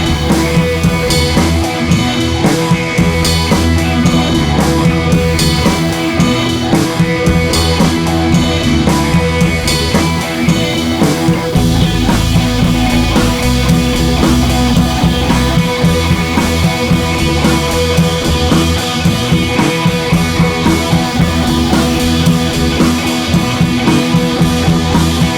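Instrumental rock music with drum kit, bass and guitar, playing at a steady beat.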